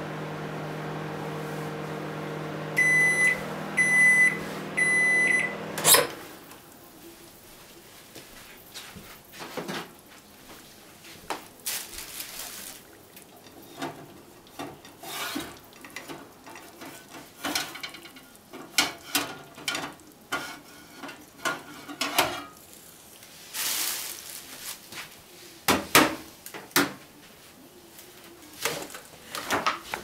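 Daewoo microwave oven running with a steady hum, then three short high beeps a second apart as the heating timer ends. About six seconds in the hum stops with a click of the door opening, followed by scattered knocks and clinks as the plate is taken out and the door is shut.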